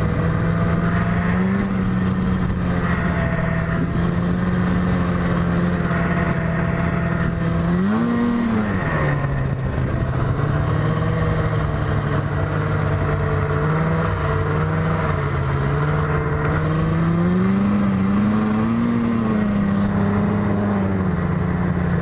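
Yamaha snowmobile engine running at a steady cruising speed, with a quick rise and fall in pitch about eight seconds in and a slower climb in pitch near the end.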